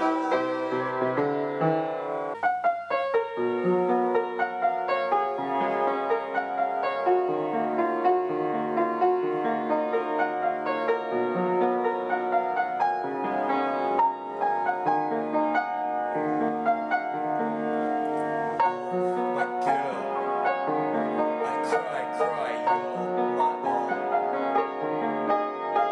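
Piano being played: a tune over changing chords, notes overlapping and ringing on.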